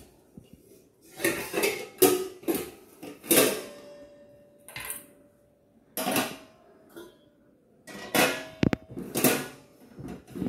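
Stainless steel idli plates clanking against each other and against the rim of a Praylady stainless steel idli cooker pot as they are stacked inside, with the steel lid set on near the end. About ten separate metallic clanks, some leaving a brief ring.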